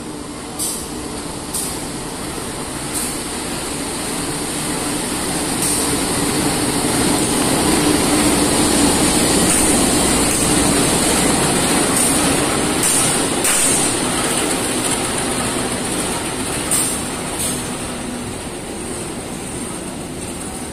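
A diesel-electric locomotive hauling a passenger train rolls slowly into the station. Its engine hum grows louder, peaks as the locomotive passes about halfway through, and then eases as the coaches roll by. Sharp wheel clicks and a high hiss run under it.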